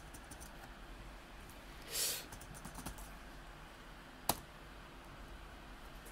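A few scattered keystrokes on a computer keyboard, with a louder key press about two seconds in and a sharp click just after four seconds, as a test step is edited and the test run again.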